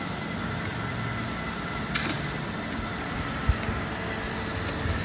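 Robotic vacuum cleaner running with a steady motor and brush hum. A faint click comes about two seconds in, and a short low thump about three and a half seconds in.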